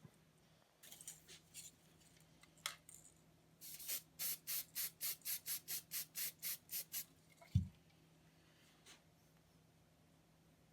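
Aerosol can of primer in use for touch-ups: a run of about a dozen short, quick high-pitched bursts, roughly four a second, after a few light clicks. A single low thump follows.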